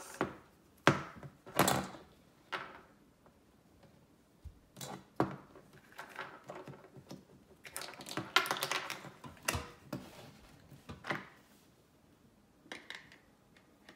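Plastic toy dentist-set pieces and a Play-Doh tub being handled: irregular clicks, taps and knocks with short pauses between them.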